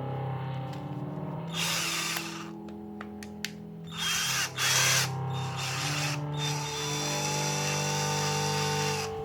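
BFL 18V cordless hammer drill running in bursts: a short run about a second and a half in, two quick bursts around the middle, then a longer run of about three seconds with a steady motor whine, stopping at the end.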